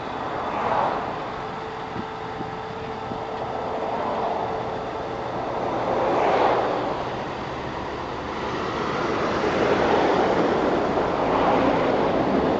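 Highway traffic passing close by: vehicles swell up and fade away one after another every few seconds, the loudest a semi-trailer truck going by about six seconds in.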